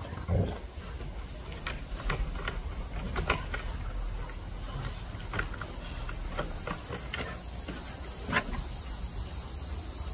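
American bully puppies moving about on a turf-covered wooden platform: scattered light knocks and ticks, with one louder low thump just after the start. A steady high insect chirring runs underneath.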